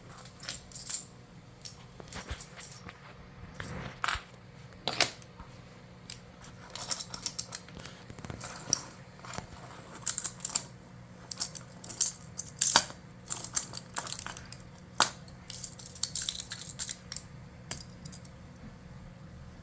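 Plastic magnetic building blocks clicking and clacking as they are handled and snapped together, in irregular clusters of sharp knocks with a few louder clacks.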